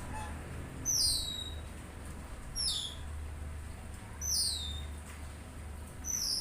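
A bird's call: a short whistled note that slides downward, repeated four times at an even pace of about one every 1.7 seconds, over a steady low hum.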